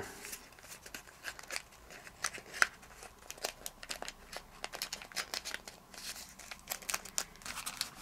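Origami paper crinkling and rustling in many small, irregular clicks as fingers pinch a flap, tuck it into a pocket and press the folded model flat.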